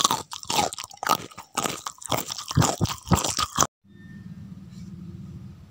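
Loud, close-up crunching and chewing eating sounds, a quick run of crisp bites that cuts off abruptly about two-thirds of the way in, followed by a quieter steady low hum of room tone.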